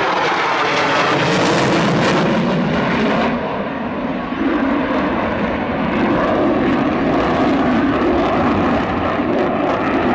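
A military fighter jet flying over: a loud, steady rush of jet engine noise that eases slightly about four seconds in, then builds again.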